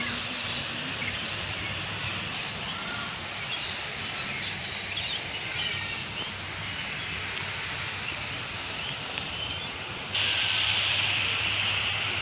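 Steady outdoor background hiss with small birds chirping over it; about ten seconds in, the hiss gets louder.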